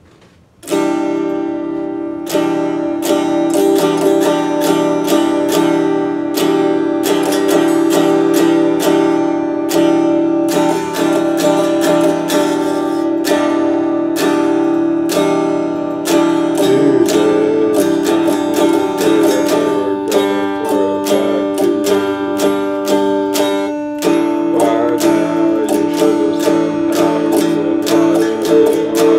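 Electric guitar picked and strummed in a steady rhythm, chords ringing, starting about a second in.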